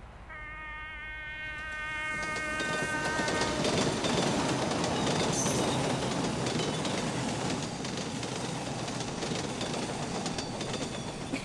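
A held horn-like tone lasting about three seconds, then a rumbling, clattering noise that swells in about two seconds in and stays loud.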